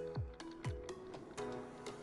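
Background music: a kick-drum beat about twice a second over held notes, the beat dropping out about a second in while the notes carry on.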